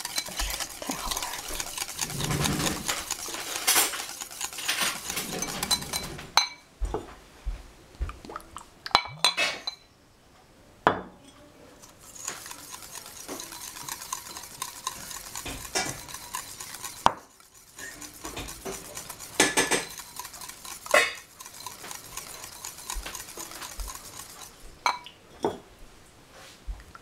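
Homemade mayonnaise being stirred in a bowl as oil is worked into egg and mustard: a utensil scrapes and clinks against the bowl. The stirring is steadiest for the first few seconds, with two quieter pauses and a handful of separate clinks.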